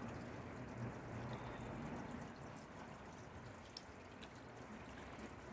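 Garden water fountain trickling steadily.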